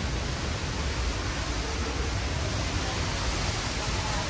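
Steady rushing noise of Niagara's Horseshoe Falls pouring down past the open end of a rock tunnel behind the falls, deep and even.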